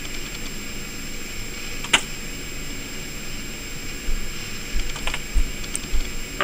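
Hands pulling apart a powder-printed (ZCorp) casting mold to free the metal part: a few light clicks and taps, one about two seconds in and more around five seconds, with soft low bumps of handling. A steady background hiss runs underneath.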